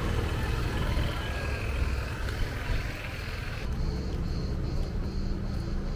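A motor scooter passing close by, its engine fading away, over low rumbling street noise. About three and a half seconds in the sound changes to a steady high-pitched buzz over a low hum.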